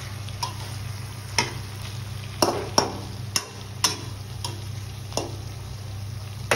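A slotted metal spatula knocking and scraping against a metal wok as a thick pork, banana flower and potato curry is stirred, with a sharp clack every half second to a second. Underneath, the curry sizzles gently over a steady low hum.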